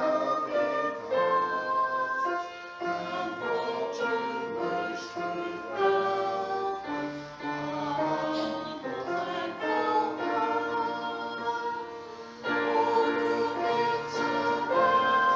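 Singing with instrumental accompaniment, a slow piece of church music; it becomes louder and fuller about twelve seconds in.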